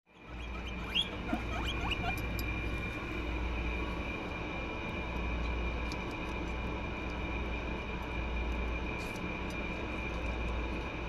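Guinea pigs give a few short rising squeaks about a second in, then eat with small crunching clicks. Under them runs a steady low hum and a high whine.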